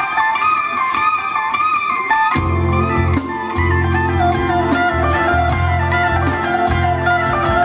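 Rock music led by an electric guitar playing a wavering, bending lead melody. The bass and drums drop out at the start and come back in about two and a half seconds in.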